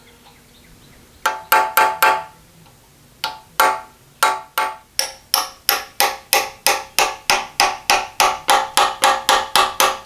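Repeated hammer blows on metal, each ringing briefly: four quick blows, a short pause, then a steady run of blows at about three a second.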